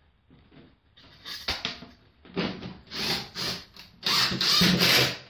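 Power drill driving a screw into the plywood transom in several short stop-start bursts, the last one longest and loudest.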